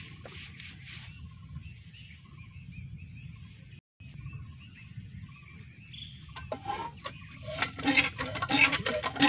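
Outdoor field ambience: a steady low background noise with faint bird chirps. About seven seconds in, background music comes in and grows louder.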